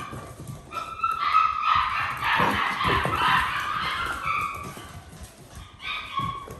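Seven-week-old poodle puppies whining and yipping in high pitches, almost without a break for the first few seconds, then again briefly near the end. These are littermates shut away and crying to be let out with the others.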